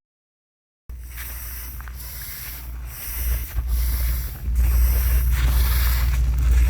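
After about a second of dead silence, drying rice grains being pushed and spread across the ground, a hissing swish that swells and fades about once a second and grows louder from the middle on, over a low wind rumble on the microphone.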